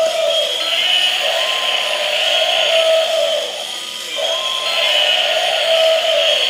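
Battery-operated light-up toy animals playing tinny electronic sound effects and a warbling, looping tune over one another.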